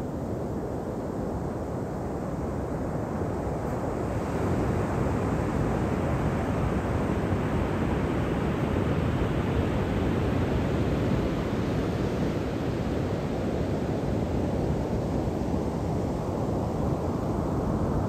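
Pacific surf breaking and washing up a sandy beach: a steady rush that swells from about four seconds in, eases, and builds again near the end.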